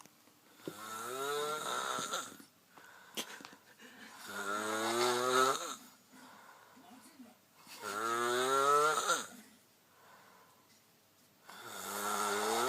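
A person snoring with the mouth open: four long snores, about one every three and a half seconds, each rising in pitch as it goes. Between snores the level drops to quiet breathing. The last snore begins near the end.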